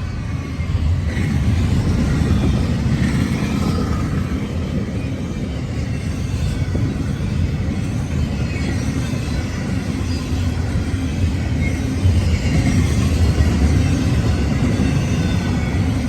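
Fast intermodal freight train passing close by: a steady, loud low rumble of wheels and cars rolling over the rails.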